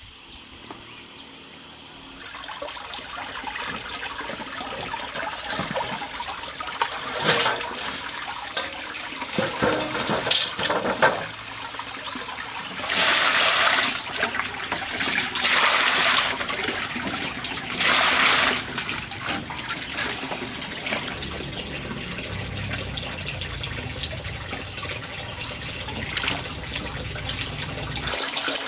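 Water trickling and splashing, with three louder gushes near the middle.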